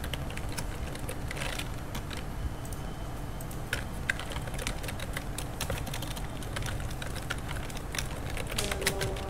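Colour pencil scratching and tapping on paper in quick, irregular strokes over a steady low hum.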